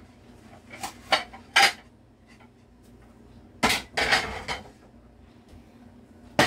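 Plates and dishes clattering as they are handled, a string of sharp clinks and knocks with the loudest about one and a half seconds in, about three and a half seconds in, and at the very end.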